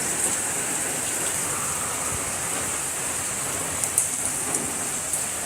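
Steady rain falling, an even hiss with a few sharper drips about four and five seconds in.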